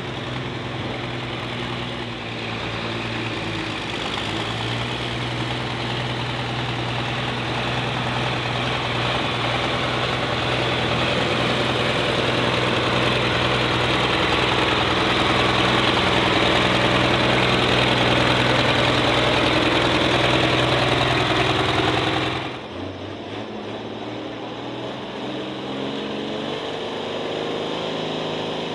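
Pulling tractor engine running hard under load as it drags the weight sled down the track, getting steadily louder over about twenty seconds. Then an abrupt cut to another pulling tractor's engine running more quietly.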